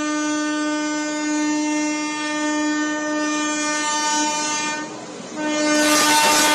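Indian Railways electric locomotive sounding its horn: one long steady blast of about five seconds, a short break, then a second blast. A loud rushing noise joins the second blast as the locomotive passes close by.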